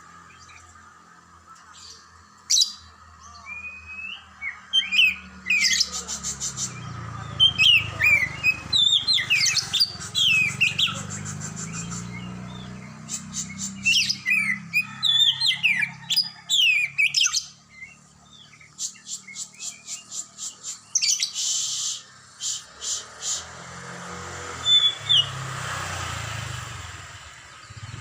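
Oriental magpie-robin (kacer) calling almost without pause: swooping whistled notes alternating with fast rattling chatter. These are bait-bird calls of the kind used to provoke male magpie-robins into singing.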